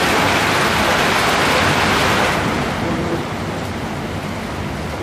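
Hailstorm: hail and rain falling hard in a dense, steady hiss. A little after halfway it turns quieter and duller.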